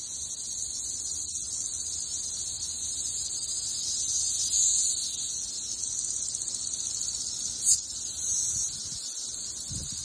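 Dense chorus of periodical cicadas: a steady, high buzzing drone, with one brief sharp click about three-quarters of the way in.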